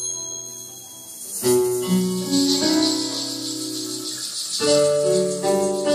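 Live instrumental ballad on nylon-string acoustic guitars, with a jingling percussion shimmer that comes in about a second and a half in and fades before a new chord near the end.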